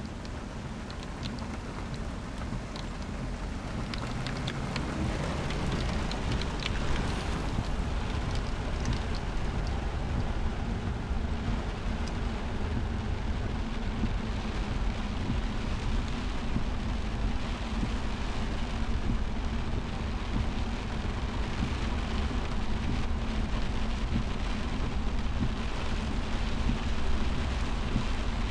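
Rain falling on a car's windshield and roof, heard from inside the cabin, over the low steady hum of the car moving slowly on wet pavement. It grows louder over the first several seconds, then holds steady.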